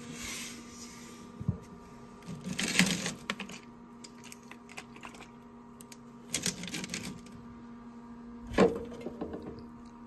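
Hands handling a frozen plastic water bottle in a portable fridge-freezer's wire basket: crinkling and rattling in short bursts, with a sharp knock about eight and a half seconds in, the loudest sound. A faint steady hum runs underneath.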